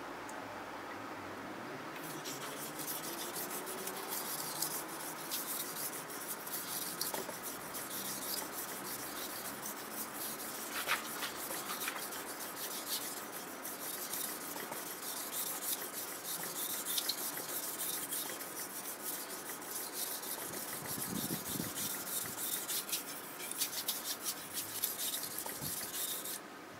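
Steel kitchen-knife blade stroked back and forth on a wet natural whetstone: a continuous gritty scraping made of many quick strokes. It starts about two seconds in and stops abruptly just before the end.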